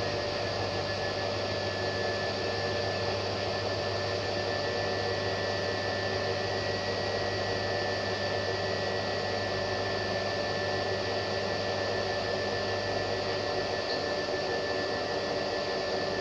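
Hotpoint front-loading washing machine running: a steady whir with a faint high whine and a low hum.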